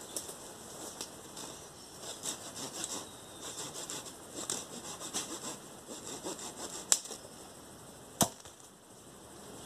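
Dry leaves and brush rustling and scraping in repeated strokes as undergrowth is cleared with a long-handled tool, with two sharp knocks near the end.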